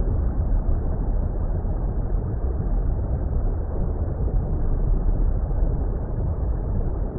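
Steady, deep water rumble noise with no separate splashes, bubbles or tones, and nothing bright or high in it.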